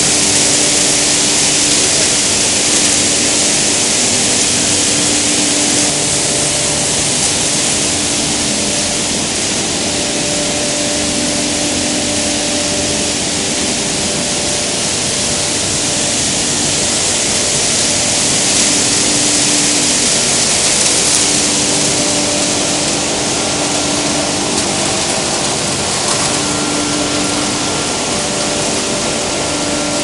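Plastic film washing and recycling line running: a loud, steady rush of air and plastic flakes through the stainless drying pipes, over the hum of the line's motors and blowers. A few steady hum tones come and go.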